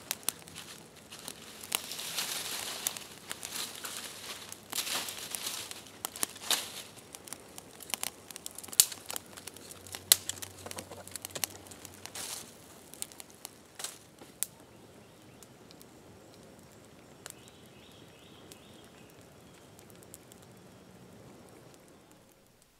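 Kindling fire of dry oak leaves and twigs crackling and popping as it catches, with the rustle and crunch of dry leaves and sticks being pushed into it by hand. The sharp pops and rustling are busiest in the first half, then settle to a fainter, steadier crackle.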